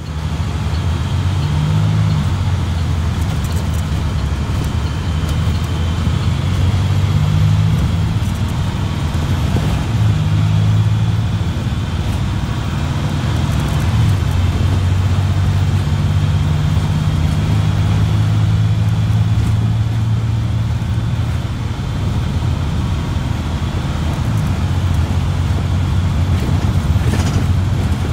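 A bus engine and road noise heard from inside the passenger cabin while the bus is driving: a steady low drone whose pitch shifts up and down as the engine changes speed.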